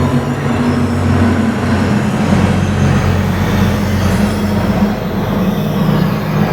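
Electronic ambient soundscape: low droning tones that shift in pitch about two seconds in, over a steady rushing, rumbling noise.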